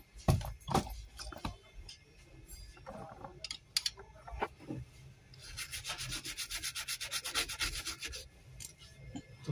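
A brush scrubbing rapidly back and forth over the cleaned solder pads of a laptop motherboard's chip footprint, about nine strokes a second for nearly three seconds in the second half. Before that come a few light knocks and taps.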